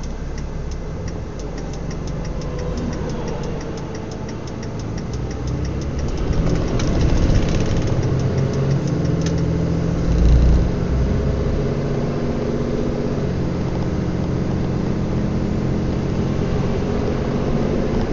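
A vehicle's engine and road noise heard from inside the cab while driving on the highway. The engine grows louder from about six seconds in. A fast, even ticking runs through roughly the first half.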